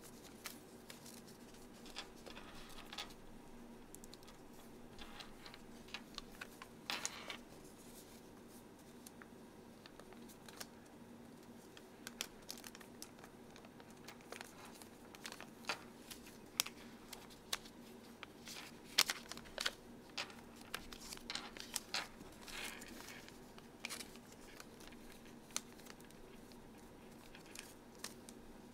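Origami paper being folded and creased by hand: scattered soft rustles and crinkles, busiest in the second half, over a faint steady low hum.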